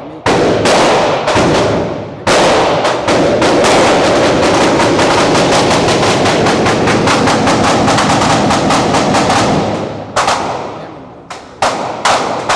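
Handgun gunfire at a shooting range: a few single shots, then a very rapid string of shots lasting about seven seconds, then a few more single shots near the end.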